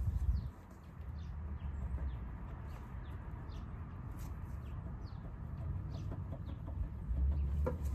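Birds chirping intermittently in short, high, falling calls over a steady low rumble.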